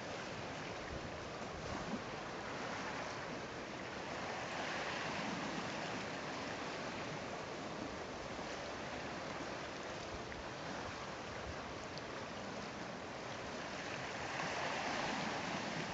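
Sea water washing against a rocky, seaweed-covered shore, a steady wash that swells about five seconds in and again near the end.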